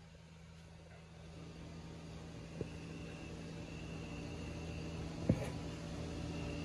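A steady low mechanical hum with a faint high whine, slowly growing louder, and two light clicks, one a little past two seconds in and one near five seconds.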